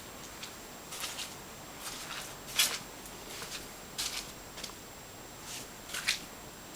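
Footsteps crunching and scraping over debris on a decaying floor: a short, sharp step or scuff about once a second, the loudest about two and a half seconds in, over a steady hiss.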